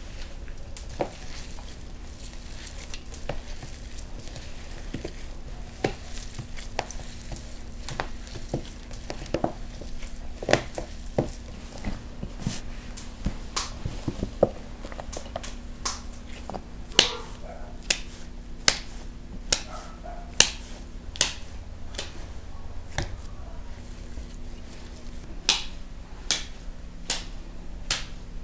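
Gloved hands kneading minced meat and onion for kebab in a stainless steel bowl: wet squelching, with sharp slaps of the mince. The slaps are scattered at first and come strong, about one a second, in the second half.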